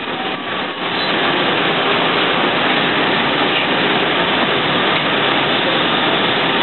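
City bus driving, its engine and road noise heard as a steady rumble and hiss from inside the cabin.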